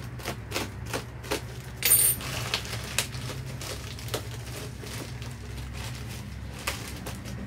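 Plastic wrapping crinkling and crackling as it is pulled and torn off a helmet by hand, in many short sharp crackles with a louder, sharper one about two seconds in. A steady low hum runs underneath.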